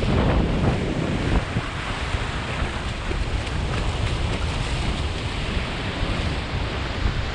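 Sea surf rushing and strong wind buffeting the microphone, with heavier low rumble for the first second and a half and then a steady rush.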